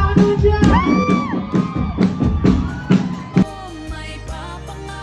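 Loud music with a steady beat and gliding melodic tones; about three and a half seconds in, the beat drops out and quieter held tones carry on.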